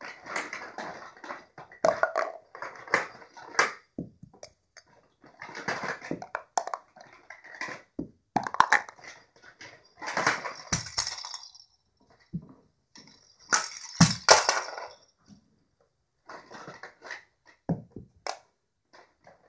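Plastic toy pieces clattering and rattling as they are handled and dropped in a hollow plastic toy bucket. The clatter comes in irregular bunches with short quiet gaps.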